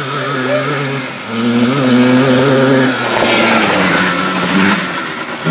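A 1991 Yamaha Blaster's air-cooled 200cc two-stroke single running hard at full throttle as the quad speeds around the track. The engine note drops briefly about a second in, then climbs again and rises and falls with the riding.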